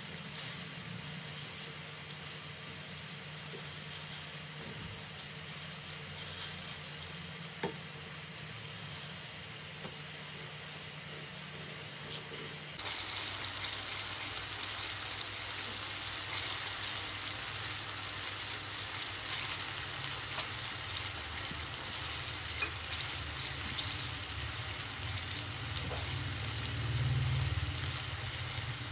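Coated chicken pieces deep-frying in hot oil in a wok: a steady crackling sizzle, with a few light clicks in the first half. About 13 seconds in the sizzle turns suddenly louder and brighter and stays so.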